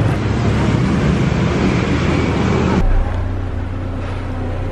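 Loud, steady street traffic noise. About three seconds in it cuts off abruptly to a quieter, steady low hum.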